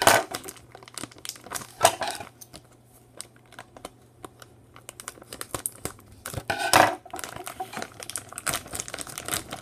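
Silver plastic mailer bag crinkling and tearing as scissors cut its edge and fingers pull it open, in irregular rustling bursts, loudest about two seconds in and again near seven seconds.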